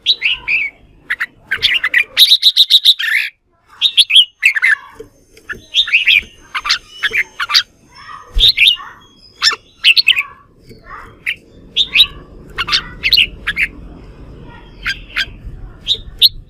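Red-whiskered bulbul singing its combative contest song: loud short chattering phrases one after another, with a fast run of about ten clipped repeated notes about two seconds in.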